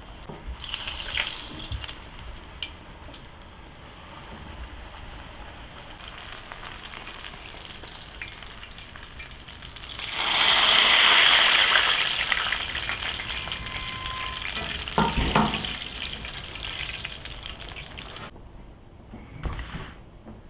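Kutab flatbreads frying in hot oil in a pan, a steady sizzle that swells loudly about ten seconds in and fades back, with a short clatter around the middle, before stopping near the end.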